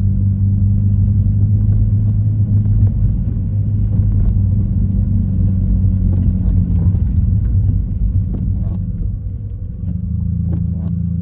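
Steady low rumble of a car in motion, heard from inside the cabin, with a few faint knocks.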